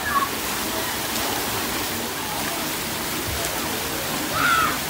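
Steady hiss and patter of water spraying from the fountain jets and play pipes of a children's splash pad, with brief high children's voices near the start and again near the end.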